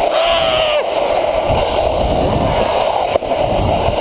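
Makeshift plastic sled sliding fast down an icy road, a continuous rushing scrape and rumble with wind buffeting a helmet-mounted camera's microphone. A short yell rings out in the first second.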